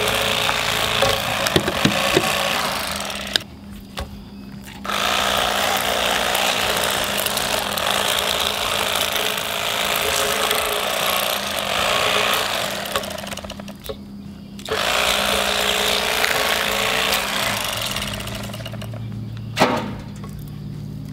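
Red-handled electric fillet knife running, its reciprocating blades buzzing as they cut fillets off a crappie. The buzzing comes in long stretches with two short breaks, about three and a half seconds in and again around fourteen seconds.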